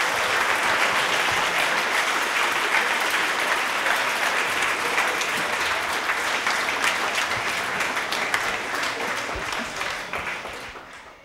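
A large audience applauding: dense, steady clapping that fades out near the end.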